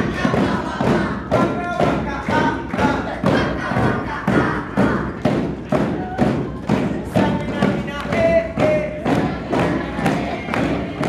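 A group of djembes played together in a steady beat, about two to three strokes a second, with voices over the drumming.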